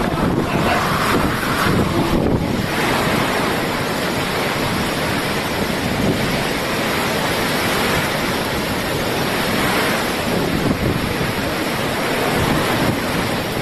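Hurricane storm noise: wind buffeting the microphone in a loud, steady rush, with no break.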